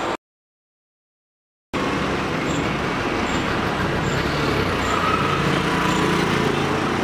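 Town street traffic noise, with a motor vehicle engine running and growing a little louder about halfway through. It is broken by about a second and a half of dead silence just after the start.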